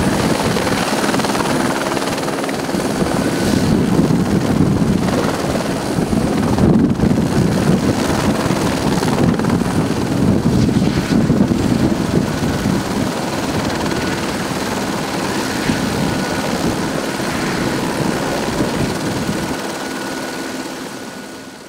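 A helicopter running on the pad at close range, its rotor turning, a steady loud whirring. It fades out near the end.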